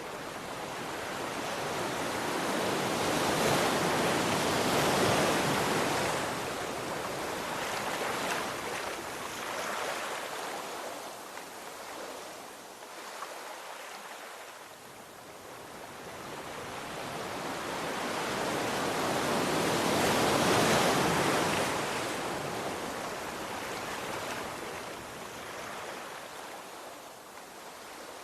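Sea waves breaking and washing on a shore, two large swells rising and falling about fifteen seconds apart, with a steady surf hiss between them.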